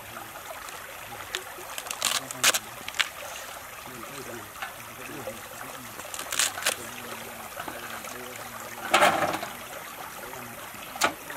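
A cleaver chopping through a bundle of hollow vegetable stems onto a wooden chopping board: several sharp, irregularly spaced knocks, the loudest about nine seconds in. A stream trickles steadily underneath.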